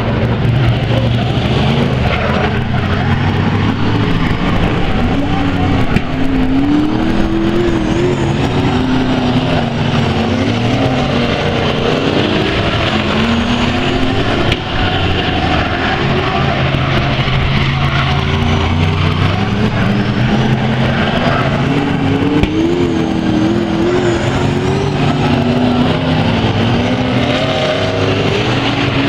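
A pack of speedway saloon cars racing, their engines revving up and falling off again in repeated waves as they come through the corner and pass.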